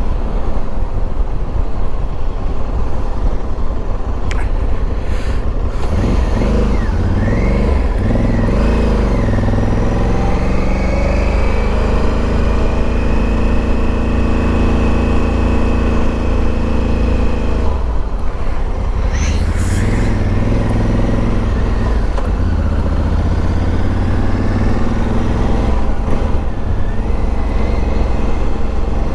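Honda dual-sport motorcycle engine under way, with heavy wind rush on the microphone. The engine note rises and falls with the throttle and gear changes, holds steady for several seconds, and drops away briefly before picking up again.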